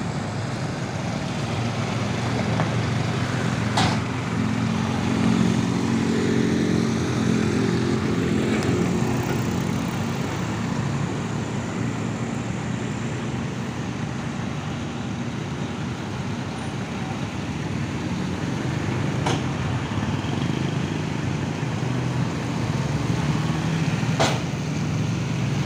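Heavy truck hauling a crane boom on a low-loader drives past, its diesel engine note rising and strongest for several seconds before it fades back into steady road and tyre noise on the wet road. A few short sharp clicks stand out over the traffic.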